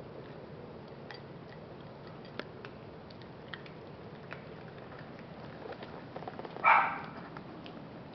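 Small dog eating dry kibble from a dish, with faint scattered crunches and clicks. A single short, loud dog bark comes about two-thirds of the way in.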